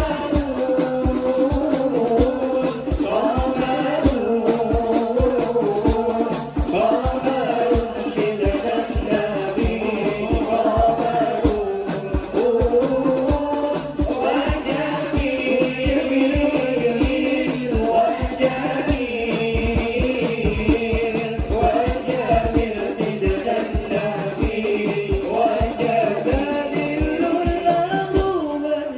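Hadrah ensemble performing: men singing a devotional song into microphones over hand-held frame drums (rebana) beating a steady, quick rhythm.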